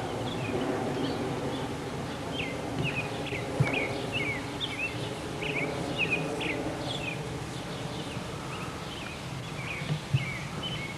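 Small birds chirping, a string of short quick chirps repeated every second or so, over a steady low background hum.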